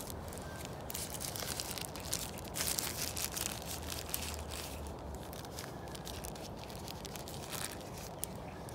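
Soft plastic wrap crinkling and rustling as it is peeled off a small earbud charging case, an irregular crackle that is busiest in the first half and thins out later.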